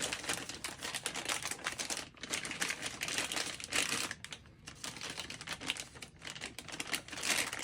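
Packaging crinkling and rustling with a run of quick, irregular clicks and rattles as a valve spring compressor is worked out of its wrapping.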